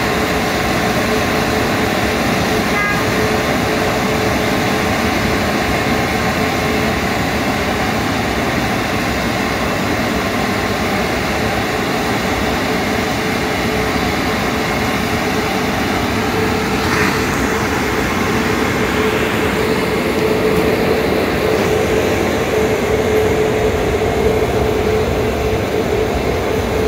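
Car wash air-dryer blowers running with a steady rush of air and a steady hum.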